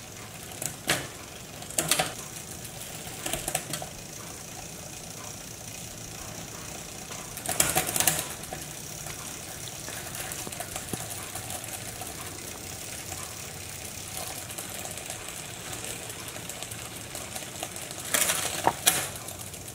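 Bicycle drivetrain spinning in a repair stand: the chain running over the mountain-bike cassette and through the SRAM X5 rear derailleur's pulleys with a steady fine ticking whir. Several louder clattering bursts stand out, the biggest about eight seconds in and another near the end.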